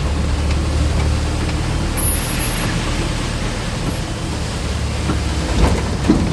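Steady low rumble of a moving road vehicle, with two brief knocks near the end.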